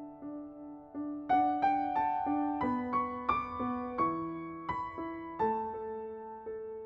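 Soft background piano music, single notes struck over sustained chords, with a brighter run of higher notes through the middle.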